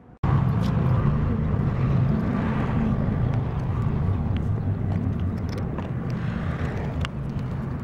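Wind buffeting the microphone: a loud, steady, fluttering low rumble that starts suddenly with a cut, with a few faint clicks over it.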